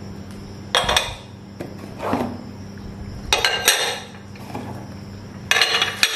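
Small pressed-glass dessert bowls clinking against each other and against a large textured glass serving bowl as they are taken out of the box and nested inside it. The clinks come in three short clusters, about a second in, around the middle and near the end, with a softer knock near two seconds.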